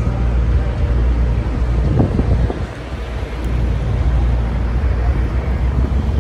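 Steady low rumble of an idling semi-truck diesel engine, with wind on the microphone.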